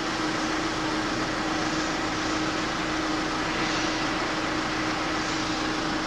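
A steady rushing noise with a constant low hum, like a running fan or machine.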